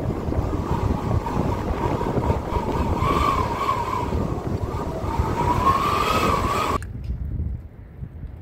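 Pickup truck driving through deep mud: the engine works hard under a wavering whine that rises and falls, with the wheels churning. It cuts off suddenly about seven seconds in, leaving a quieter sound.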